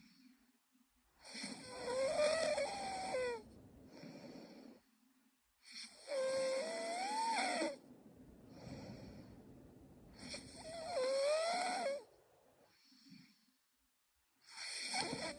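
A young woman snoring in her sleep: four loud snores, evenly spaced about four and a half seconds apart, each with a wavering pitch. Softer breathing sounds come between them.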